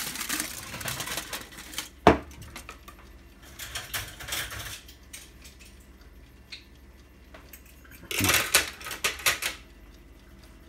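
Aluminium foil crinkling as it is handled and pulled off a loaf mould, with a sharp knock about two seconds in. More bursts of rustling and light clinks come a couple of times after.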